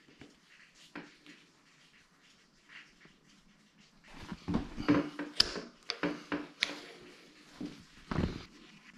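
A folding multi-tool's hex key working the grub screw on an EMOVE Cruiser electric scooter's folding stem clamp. After a few quiet seconds there is a run of sharp metallic clicks and knocks from about four seconds in, and a couple of duller thumps near the end as the stem is handled.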